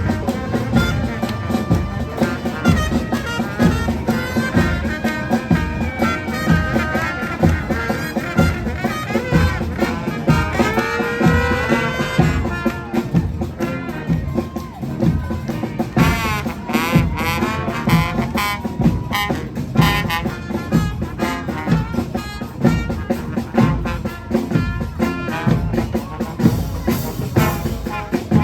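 Street brass band playing: horns over a steady drum beat, with a few sliding notes about ten seconds in.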